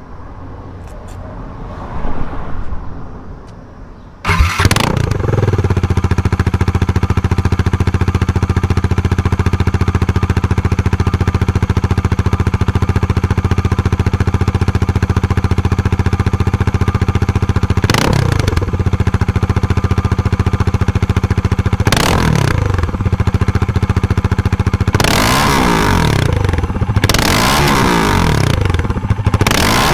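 Bajaj Dominar 400's single-cylinder engine, muffler removed, started from cold: it catches about four seconds in and settles into a loud, steady idle. Two short throttle blips follow, then several quick revs near the end.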